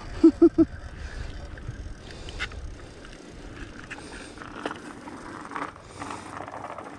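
Bicycle being ridden on smooth pavement: wind rushing over the microphone, with tyre and frame noise and scattered light clicks and rattles. A few short squeaks come in the first second.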